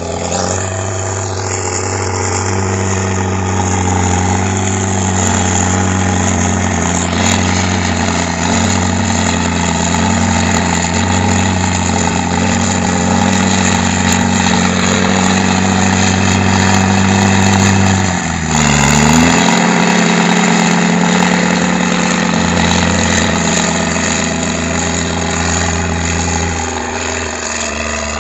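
Komatsu heavy-equipment diesel engine running steadily with a deep rumble. About two-thirds of the way through, its pitch briefly dips and then swings back up before it settles into the same steady running.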